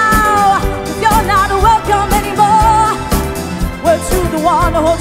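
A woman singing live into a handheld microphone over a backing band with drums, holding and bending long notes with a wide vibrato.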